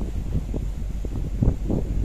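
Wind buffeting the microphone in irregular gusts over a steady low rumble, on the open deck of a container ship at sea.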